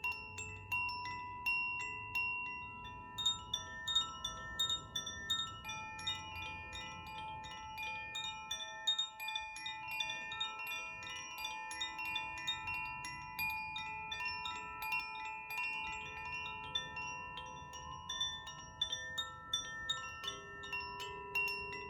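Koshi chimes shaken continuously, the clapper striking the tuned rods several times a second so that bright, overlapping ringing tones build up. A lower steady tone comes in near the end.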